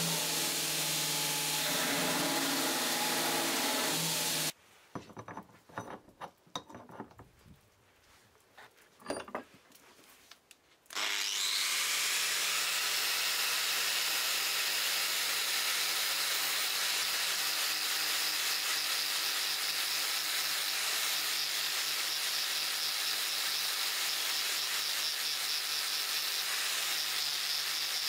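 A belt grinder runs with a steady hum for about four and a half seconds, then stops, leaving a quiet stretch with a few scattered clicks and knocks. About eleven seconds in, an angle grinder cuts in suddenly and grinds steadily on the rust and steel of an old axe head, a loud hissing grind.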